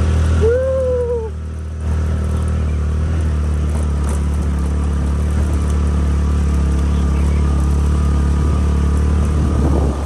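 Motor scooter engine running hard under load on a steep uphill climb, a steady low drone. It eases off briefly about half a second in and picks up again about two seconds in. A short rising-then-falling tone sounds near the start.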